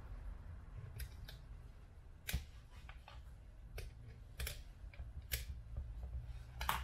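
A handful of sharp, irregular clicks and taps of small plastic and metal parts as the carbon brushes are prised out of the back of a brushed cordless drill's motor with a small screwdriver, and the screwdriver is laid down on the bench mat.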